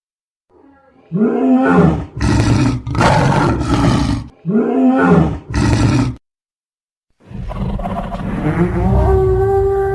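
Dinosaur roar sound effects: a run of about five short, loud roars and growls, then after a short silence one long, drawn-out roar.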